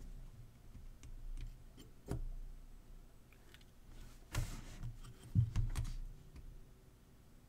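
Faint clicks and brief rustling as multimeter test probes and a small metal flashlight tail cap are handled and tapped together, with a sharp click about two seconds in and a couple more around five and a half seconds.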